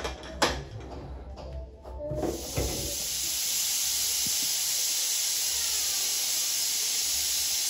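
A few short knocks and clinks, then about two seconds in a steady hiss sets in and holds level until it cuts off.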